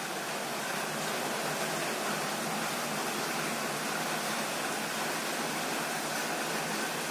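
A steady, even hiss of background noise with no distinct sounds in it.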